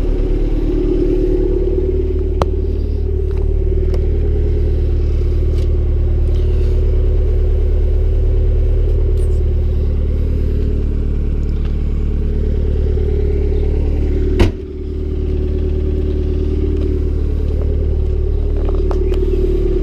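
Turbocharged Honda Civic D16Y7 single-cam four-cylinder running steadily on an engine with a spun bearing. A single sharp knock about two-thirds of the way through, after which the level briefly drops.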